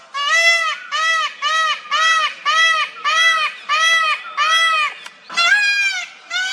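Male peafowl (peacock) calling in a rapid series of short, loud, nasal honking notes, about two a second, each note rising and falling in pitch; after a brief pause near the end, one longer note and the series resumes.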